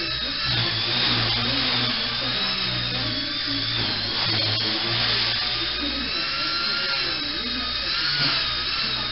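Walkera Super CP micro RC helicopter running, its small electric motor and rotor giving a steady high whine that wavers slightly in pitch, over a low hum.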